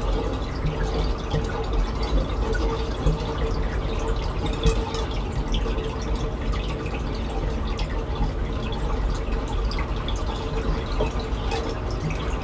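Water circulating in a reef aquarium, trickling and dripping in many small ticks over a steady low hum.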